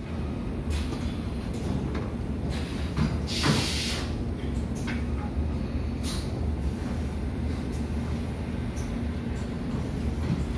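Computer-to-plate platesetter and plate-conveyor machinery running with a steady low hum. Short bursts of hiss break in now and then, the loudest about three and a half seconds in.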